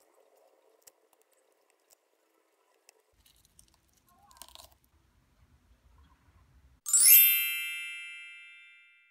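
A bright, ringing chime sound effect strikes about seven seconds in and fades away over about two seconds. Before it come faint crackles as pineapple fruitlets are pulled off by hand.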